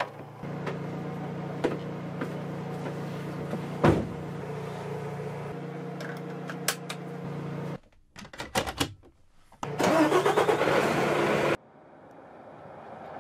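Mercedes-Benz Future Truck 2025 heard from the cab: a steady engine hum with scattered clicks, a heavy thump about four seconds in, and seatbelt buckle clicks. A loud burst of engine noise follows and cuts off suddenly. Then the truck is heard approaching, growing steadily louder.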